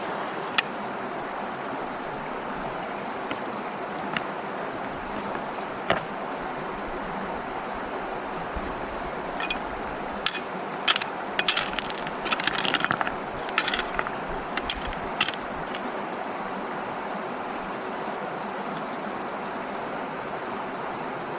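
Stream flowing steadily, with a run of small sharp clicks and rattles from camp gear being handled about ten to fifteen seconds in.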